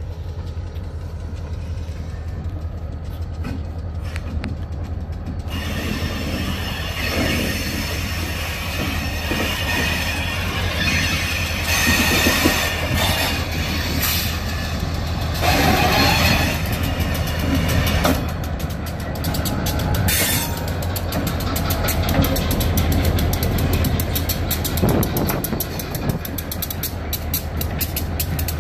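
An EMD GP40 diesel locomotive, trailed by an SW1500 switcher, approaches slowly and passes close by. The engine throbs steadily and grows louder as the locomotives near. From about six seconds in there is steel-wheel and rail noise, with several short, high wheel squeals.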